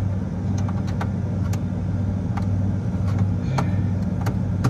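Steady low hum of running refrigeration condensing-unit machinery, with a few light metallic clicks of a flat screwdriver working the wire terminals of a three-pole contactor.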